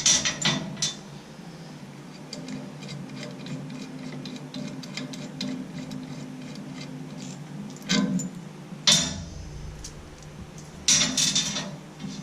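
Hand work on small metal hardware: light clicks and ticks of tools against bearings and bolts as the bearings are taken off, with a few louder metal clatters about 8, 9 and 11 seconds in.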